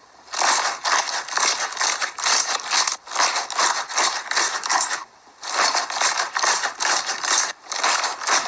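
Slime being squeezed and worked by hand, giving a dense run of crackling clicks that pauses briefly a few times.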